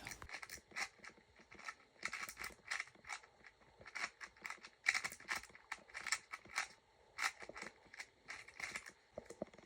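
Plastic 4x4 speedcube being turned one-handed: quick, irregular clicking and clacking of the layers snapping into place, in short runs of turns.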